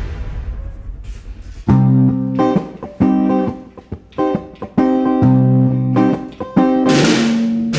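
Intro music: a guitar playing loud chord stabs with sharp starts and stops, beginning about two seconds in after a fading rumble. A rising hiss comes in near the end.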